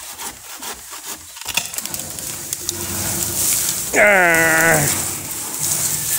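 Cut leafy branches of a kamini (orange jasmine) tree rustling and crackling as they are handled, with sharp twig snaps in the first second or so. About four seconds in, a person's voice lets out one short held call, the loudest sound.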